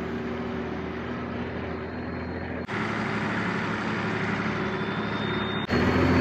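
Four-wheel-drive's engine running steadily as it drives through soft sand, a low hum under road noise that changes abruptly in level twice.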